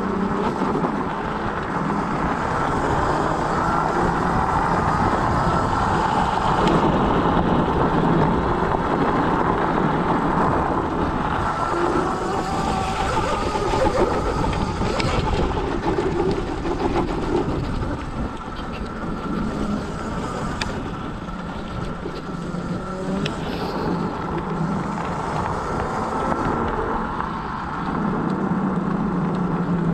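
Scooter being ridden, its motor running steadily under road noise, with small rises and falls in level.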